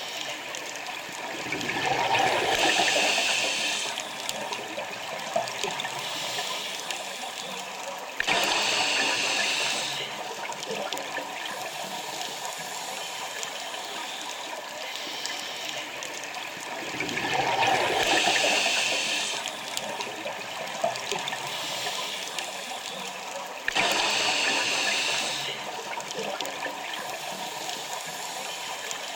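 Scuba diver breathing through a regulator underwater: two slow breaths, each a swelling hiss and then, several seconds later, a rush of bubbles that starts suddenly and lasts about two seconds.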